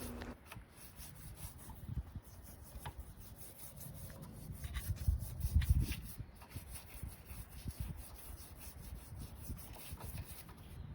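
Toothbrush scrubbing a baking soda and water paste onto a battery's negative terminal: faint, irregular rubbing and scratching, a little louder about five seconds in.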